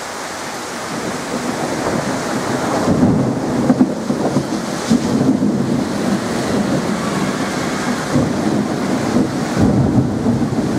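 Heavy downpour in a thunderstorm, with rain pouring onto the street and thunder rumbling. The wash of rain builds over the first few seconds and then stays loud, swelling unevenly.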